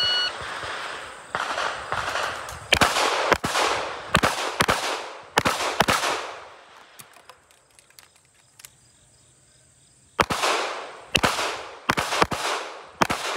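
A shot-timer start beep, then a 9mm Laugo Arms Alien pistol firing about a dozen shots, mostly in quick pairs, each with a short echo, and a pause of about four seconds halfway through.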